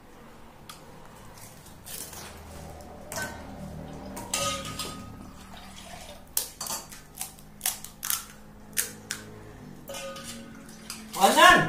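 Stainless-steel dishes and cups clinking and knocking in a series of sharp taps, most of them in the middle. A short, loud vocal exclamation comes near the end.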